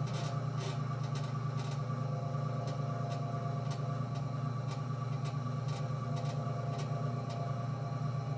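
Electric pottery wheel spinning, a steady motor hum with a light tick about twice a second, as wet hands collar in a clay cylinder on the wheel head.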